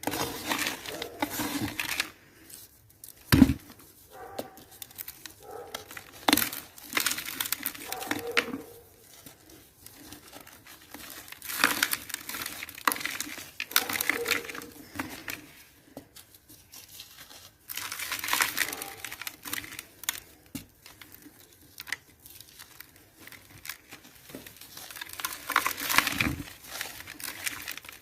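Dry, gritty cement being crumbled, crunching and crackling in bursts a few seconds long with quieter gaps between them. There is a single sharp knock about three seconds in.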